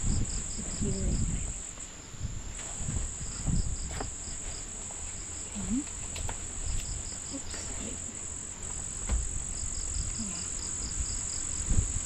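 Insects shrilling: a steady high-pitched drone with short trains of rapid chirps repeating every second or two. Banana leaves crinkle and rustle in the foreground as they are folded around a fish.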